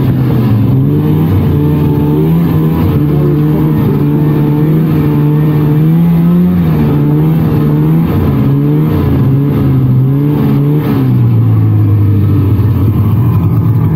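1999 Polaris trail snowmobile's two-stroke engine running as it rides along, its pitch rising and falling with the throttle. About eleven seconds in it drops to a lower, steadier note.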